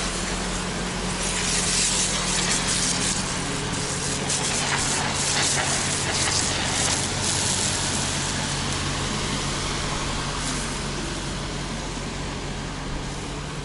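Engine of a pavement-washing machine running steadily while its water spray hisses onto the paving. The hiss is strongest through the first half and eases off toward the end.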